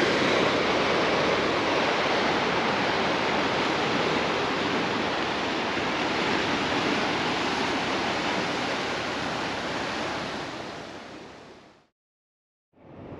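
Waves breaking and washing over the rocks of a rocky ocean shoreline, a steady rushing surf that fades away near the end.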